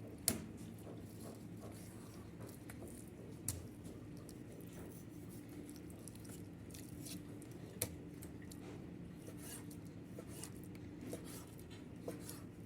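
Kitchen work sounds: scattered light clicks and knocks of utensils against dishes or a board, the sharpest about a third of a second in and others near 3.5, 8 and 12 seconds, over a steady low hum.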